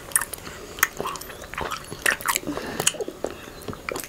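Close-up chewing of raw honeycomb: biting and mouth clicks and smacks as the wax comb is chewed, in an irregular run of sharp little clicks.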